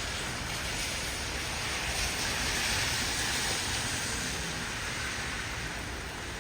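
Heavy rain falling in a steady hiss, with a low rumble underneath that swells a little a couple of seconds in.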